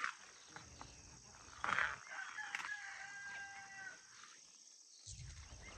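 A rooster crowing once, one long call of about two seconds held on a steady pitch, over a steady high insect drone. A short rustle comes just before the crow.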